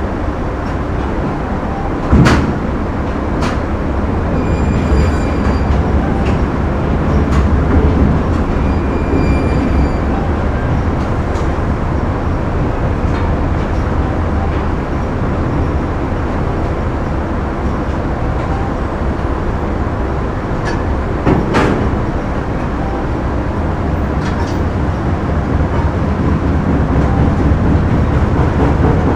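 Factory machinery running steadily with a heavy low rumble. A few sharp metallic knocks cut through it, the loudest about two seconds in and again about twenty-one seconds in, and two brief high-pitched squeals come around five and nine seconds in.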